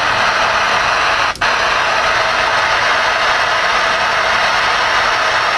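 Stryker SR-955HPC ten-meter radio in receive, with steady static hiss coming from its external speaker and cutting out for a split second about a second and a half in.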